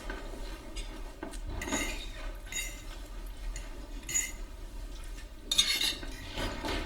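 Cutlery clinking against plates and dishes as people eat, in scattered light clinks, with a louder, noisier burst about five and a half seconds in.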